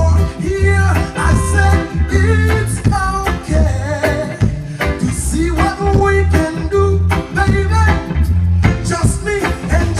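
A band playing reggae-style music with a singer over a heavy, pulsing bass line.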